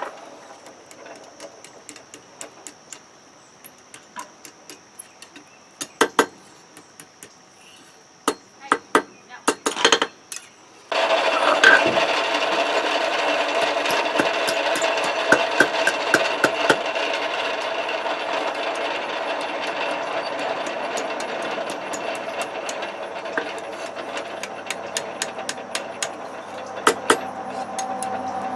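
Light metal taps and clinks as a hot steel bar is bent and tapped into a heart shape with scrolling tongs and a hammer. About eleven seconds in, a steady machine noise starts suddenly, and the taps go on over it.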